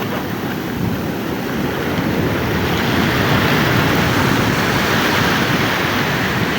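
Sea surf washing and breaking on the beach, a steady rush that swells slightly partway through, with wind rumbling on the microphone.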